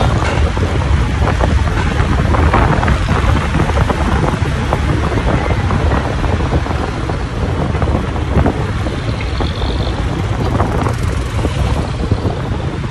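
Wind rushing over the microphone of a moving motorcycle, with road and traffic noise underneath; a steady, loud rush.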